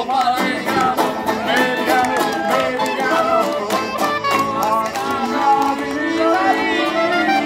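Live folk band music from a strolling trio: a strummed banjo, an accordion and a woodwind playing a lively Italian tune together.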